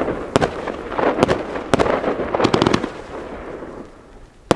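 Funke 'Funkenweide' firework battery firing: a string of sharp bangs at uneven intervals, with a rushing crackle between them that dies away about four seconds in, just before another bang near the end.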